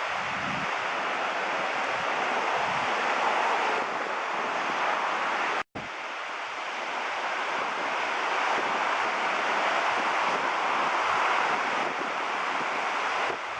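Ocean surf washing on a beach, a steady rushing that swells and ebbs, with wind buffeting the microphone. The sound drops out for a split second a little before halfway.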